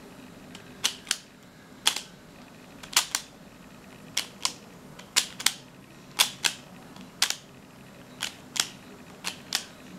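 Plastic Pyraminx puzzle being turned by hand: sharp clicks as its layers snap round, about sixteen in all and often in quick pairs, one pair roughly every second as the pif-paf turn sequence is repeated.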